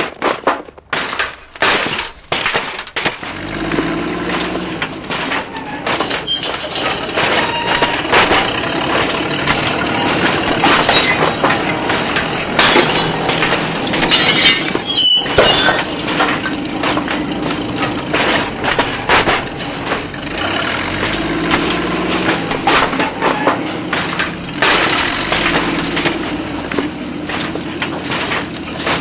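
Sound-effect mix of crashing and breaking glass, with many sharp knocks and a few louder crashes around the middle. A low, pitched vehicle-engine sound runs under it in places.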